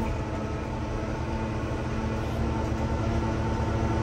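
Engine running steadily: an even, low drone that holds level and pitch, with a faint steady hum above it.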